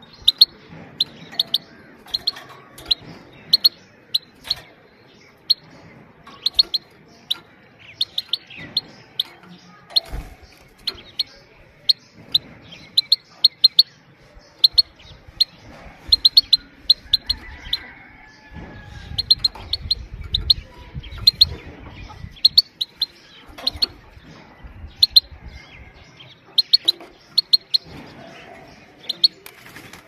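Female goldfinch repeating short, sharp, high 'pit-pit' calls, often in quick pairs, at about two a second. A low rumble sits under the calls for a few seconds in the middle.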